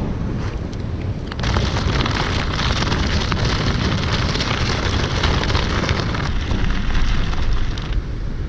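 Air-filled off-road inline skate tyres rolling over hard-packed sand, a steady gritty crackle that gets louder about a second and a half in and eases near the end. Wind rumbles on the microphone underneath.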